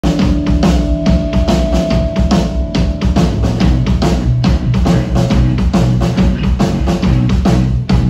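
Live rock band playing loud on electric guitar, bass guitar and drum kit. A held note rings for the first three seconds, then the band kicks into a driving beat with regular drum hits over a low bass line.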